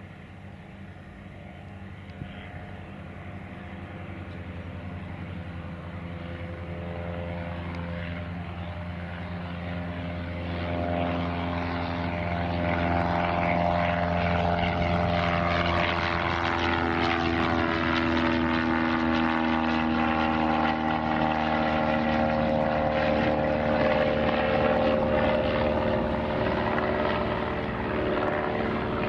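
Cessna 172's piston engine and propeller at full takeoff power, growing steadily louder as the plane climbs out toward and over the listener. The pitch then drops as it passes and moves away.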